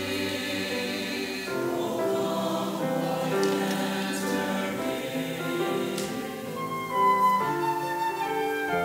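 Church choir singing a sacred piece in sustained, changing chords.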